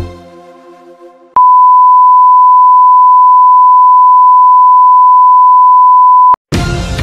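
A station ident's music dies away, then a loud, steady single-pitch broadcast test tone, the beep that goes with colour bars, sounds for about five seconds and cuts off abruptly. New music starts just before the end.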